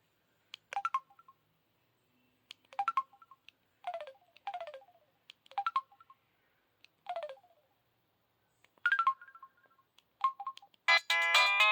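A Samsung cell phone playing ringtone snippets through its small speaker: about eight brief chimes of a few quickly falling notes each, separated by silence. Near the end a louder, fuller ringtone melody starts.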